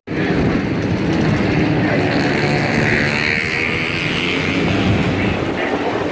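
Steady, loud engine noise from vehicles, with a higher-pitched swell about halfway through that then eases off.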